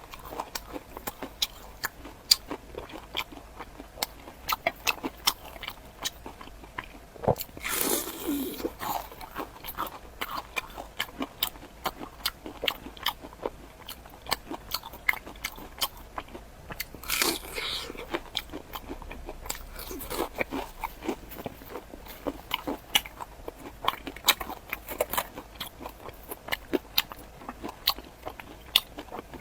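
Close-miked crunchy biting and chewing of pumpkin cake: a steady run of crisp crackling crunches, with louder bites about a quarter of the way through and again a little past halfway.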